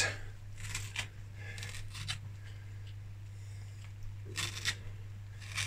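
Lemon zester scraping across the skin of an unwaxed lemon: a handful of short, soft, scratchy rasps spaced unevenly, over a steady low hum.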